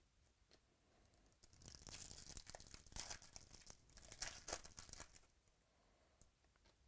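Foil wrapper of a 2017 Bowman's Best baseball card pack being torn open and crinkled by hand. The crackling tearing starts about a second and a half in and lasts about three and a half seconds.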